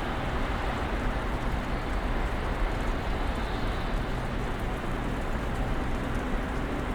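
Snowstorm ambience: an even, steady hiss of wind and snow over a low, constant hum.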